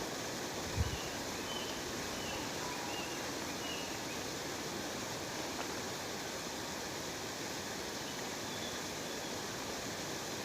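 Steady rushing of a waterfall, with a few faint bird chirps in the first few seconds and again near the end. A brief low thump about a second in.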